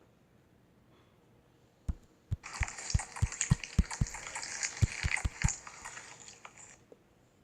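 Slime being squeezed and poked: a wet crackling lasting about four seconds, with a run of soft, quick low pops.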